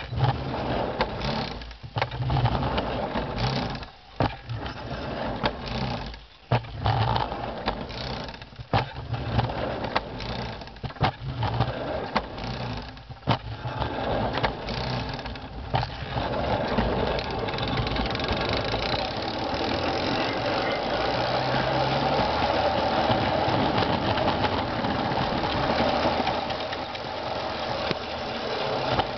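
Home-built hand car rolling on 7.5-inch gauge track, its steel wheels and drive mechanism clicking and knocking along the rails. About halfway through the clicks merge into a steadier, louder rolling noise.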